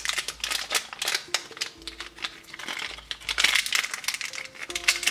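A small packet of sugar-free gum from a ration pack being torn open and crinkled between the fingers, a dense run of crackles, with quiet background music under it.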